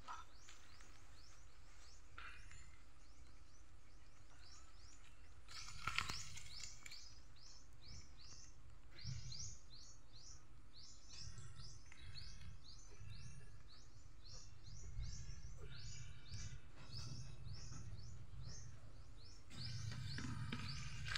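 Small birds chirping over and over in quick, short falling notes, over a low rumble that comes and goes.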